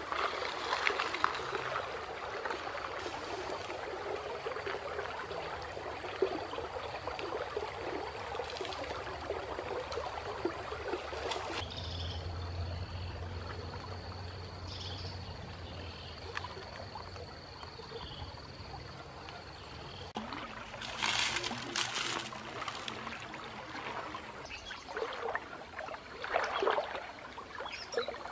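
Stream water trickling and splashing, with louder splashes in the second half from a person wading waist-deep through the creek.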